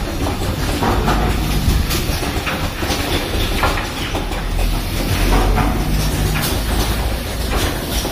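Automatic rapid test kit assembly machine running continuously: a steady low hum with short mechanical clacks and hisses recurring about one to two times a second as it cycles.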